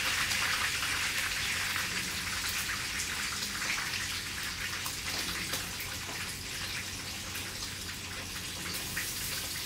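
A piece of fish frying in hot oil: a steady sizzle thick with small crackles and pops, easing slightly over the few seconds.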